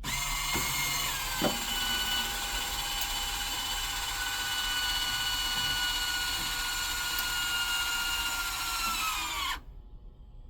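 A small electric motor running with a steady high whine. Its pitch drops about a second in, and it sags lower before cutting off abruptly near the end. There is a single knock about a second and a half in.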